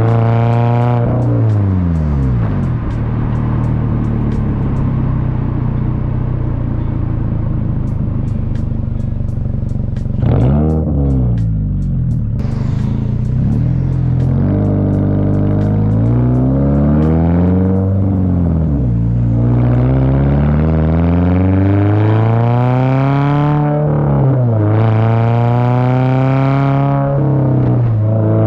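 Toyota GR86's 2.4-litre flat-four engine running through a titanium cat-back exhaust, revved up and down. It drops to a steady low note, gives a quick sharp blip about ten seconds in, then climbs and falls through several longer rev sweeps.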